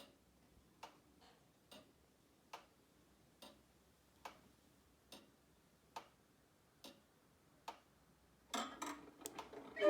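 Old Black Forest organ clock's movement ticking faintly and evenly, a little under one tick a second. Near the end comes a short burst of louder mechanical clicks and clatter.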